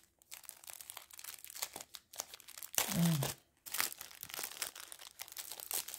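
Packaging crinkling and tearing in irregular crackles as a diamond painting kit is unwrapped by hand.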